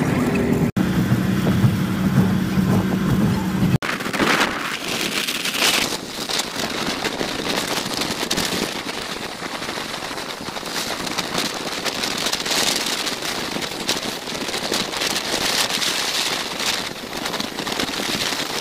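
Ride noise from a moving bus. For the first few seconds an engine hums with a steady low tone; about four seconds in it switches to a rushing, crackly noise of wind and road.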